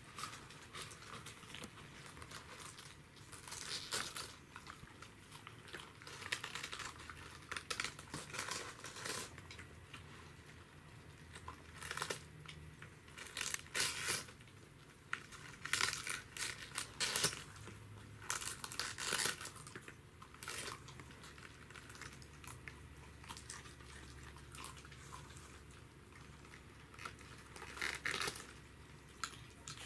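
Pembroke Welsh corgis biting, tearing and crunching raw cabbage leaves off a whole head, in irregular crisp bursts with quieter pauses between.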